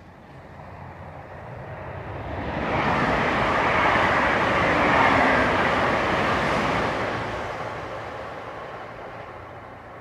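A passing vehicle: a noise with no clear pitch swells over about three seconds, holds, then fades away.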